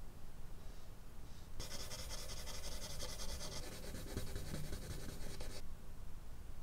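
Charcoal stick scratching across drawing paper in quick, rasping strokes. It starts about a second and a half in, runs for about four seconds, then stops.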